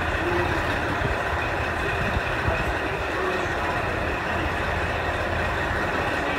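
Steady hum of an idling diesel railcar engine.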